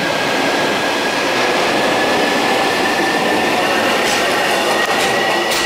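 Container wagons of a long freight train passing at speed: a steady, loud rumble of steel wheels on the rails, with a thin whine slowly rising in pitch and a few sharp clicks in the last two seconds.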